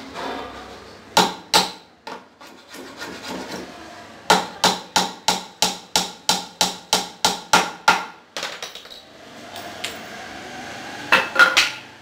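Hammer blows on a laminated particleboard panel: two strikes, then a steady run of about a dozen at roughly three a second. Near the end the boards scrape and knock together twice as they are handled.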